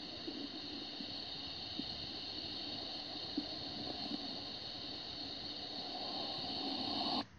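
Steady background hiss with a few faint ticks scattered through it.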